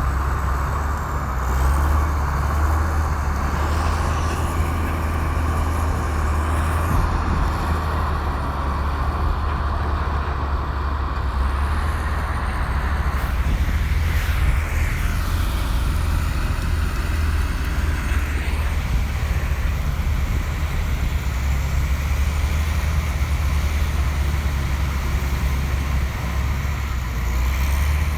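Komatsu bulldozer's diesel engine running under load, a steady deep rumble. A higher rushing noise over it drops away about halfway through.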